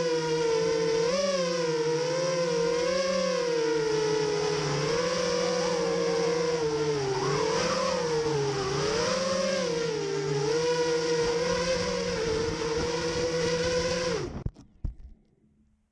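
Onboard sound of a 5-inch FPV racing quadcopter: four Cobra 2204 2300kv brushless motors spinning triple-blade props, a loud buzzing whine whose pitch wavers up and down with the throttle. A little over fourteen seconds in the motors spool down and stop within a fraction of a second, followed by a few faint knocks.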